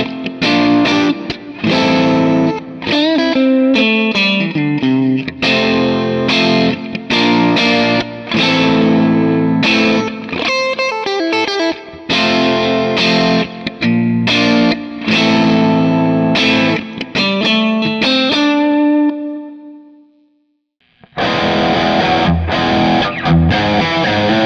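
Electric guitar played through a digital amp profile of a Bad Cat Hot Cat 40: a Strat-style guitar picks overdriven riffs and chords, the last note ringing out and fading about twenty seconds in. After a brief silence a Les Paul-style guitar comes in with a denser, more saturated distorted tone.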